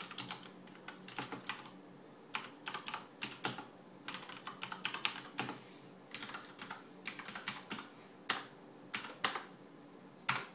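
Typing on a Das Keyboard Professional Model S mechanical keyboard with Cherry MX Brown switches: runs of quick key clacks broken by short pauses, with one sharper keystroke near the end.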